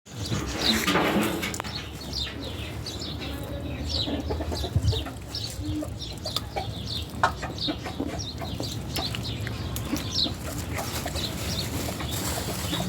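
Birds calling: short high chirps repeating throughout, with a lower call about a second in, in the manner of chickens clucking.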